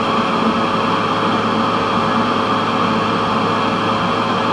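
12-volt fan of a DIY ice-chest air cooler running: a steady rush of blown air with a faint, even motor hum.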